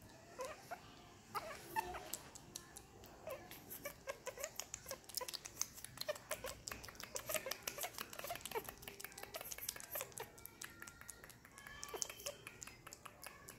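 Baby macaque making short, high squeaks and whimpers over and over, mixed with many quick clicks.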